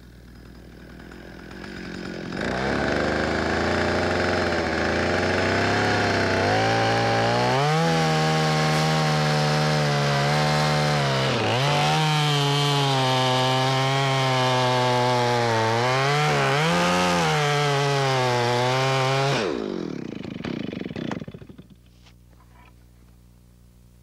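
Two-stroke chainsaw sawing the back cut to fell a tree. It speeds up about two seconds in, and its engine note sags and recovers as the chain loads in the wood. Near the end it comes off the throttle and winds down.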